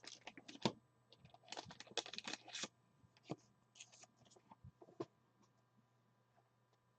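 Trading cards being handled: faint rustling, scraping and clicking, busiest in the first three seconds, with a few more clicks up to about five seconds in.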